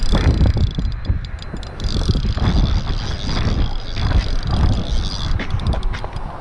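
Wind buffeting the microphone in loud, uneven gusts, with a thin steady high whine and scattered clicks from a spinning reel being worked while a hooked fish is fought.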